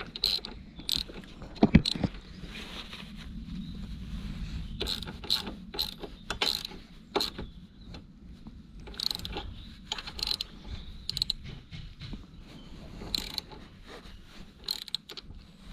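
Socket ratchet clicking in short, irregular runs as a 17 mm bolt on a motorcycle crash-bar bracket is turned.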